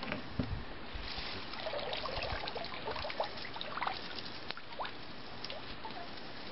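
Water trickling and dripping as a wire-mesh crawdad trap is lifted out of a shallow creek, with scattered light clicks and rattles from the trap being handled.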